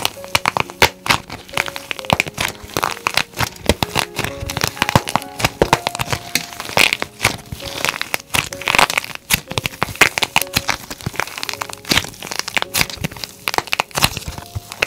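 Hardened plaster clay being cracked and crumbled by hand: many sharp cracks and crunches in quick, irregular succession, with small bits breaking apart between the louder snaps.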